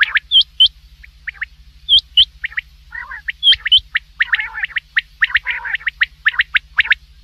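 Common quail calling: short, sharp notes in quick twos and threes, with a denser run of overlapping calls in the middle, over a faint steady low hum.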